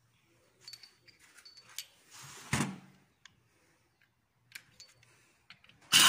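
Scattered light metallic clicks and clinks of hand tools and engine parts being handled, some with a brief ring, and one louder knock about two and a half seconds in.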